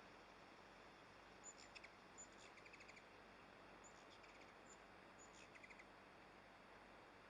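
Faint wild bird calls over a steady hiss: about four short chirp groups, each a brief high note followed by a quick run of ticks.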